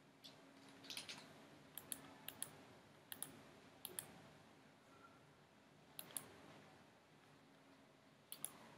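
Faint computer mouse clicks, about eight in all, several in quick pairs, spaced irregularly over a quiet room hum.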